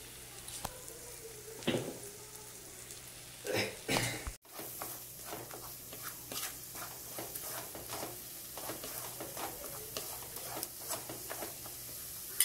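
Eggs and onion-tomato masala sizzling softly in a nonstick kadai, with a couple of louder knocks in the first four seconds. From about four seconds in, a wooden spatula stirs and scrapes through the scrambling eggs in frequent short strokes.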